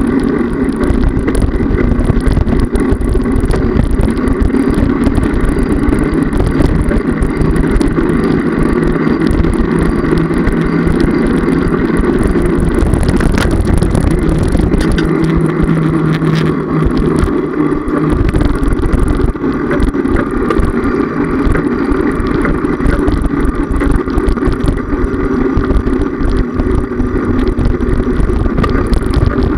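Loud, steady wind buffeting and rolling rumble on a bicycle-mounted camera's microphone while riding on a paved path.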